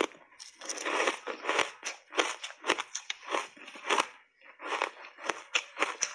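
Close-miked chewing of a mouthful of dry, crunchy block ice: a rapid run of sharp crunches, about three a second, with a short break about four seconds in.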